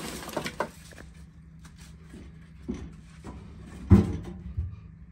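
Scrap wood pieces knocking and clunking against each other and the stainless steel burn chamber as they are loaded into a biochar barrel, a few separate knocks with the loudest about four seconds in.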